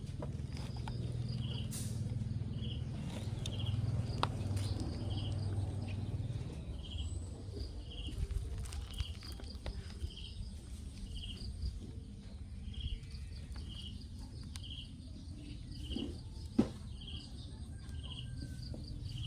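An animal repeating a short high chirp about once a second over a low steady rumble, with a sharp click about three seconds before the end.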